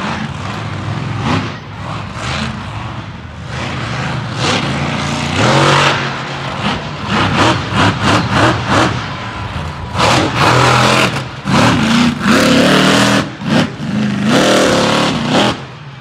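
Monster truck engine revving hard, its pitch rising and falling in repeated surges, busiest in the second half.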